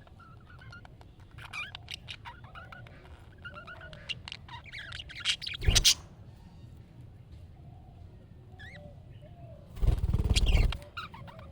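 Budgerigars chirping and warbling, with quick chirps, clicks and chattering notes. Two loud noisy bursts break in, a short one a little past halfway and a longer one of about a second near the end.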